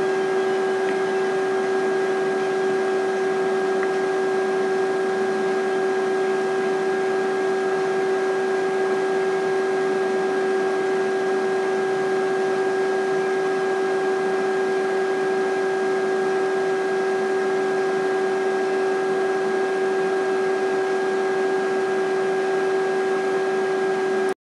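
Steady hiss with a constant pitched hum and its overtones, unchanging: machine or electrical noise rather than the match audio.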